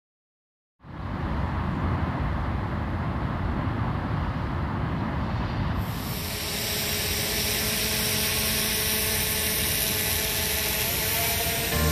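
Steady roar of volcanic steam venting from Bromo's crater fumaroles. It starts just under a second in, and from about six seconds in it turns into a brighter, harsher hiss.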